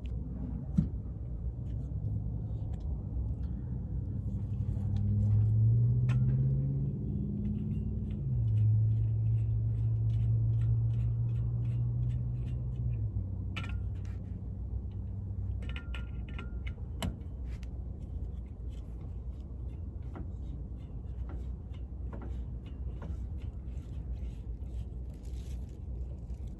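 A vehicle engine whose hum rises in pitch, drops back about eight seconds in, then holds steady for a few seconds before fading, over a low rumble. Scattered small clicks and clatter run through it.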